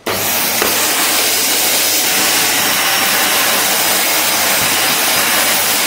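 Agaro Regal Plus 800-watt upright/handheld vacuum cleaner switched on, its motor starting suddenly and then running steadily with a loud rushing whine and a low hum.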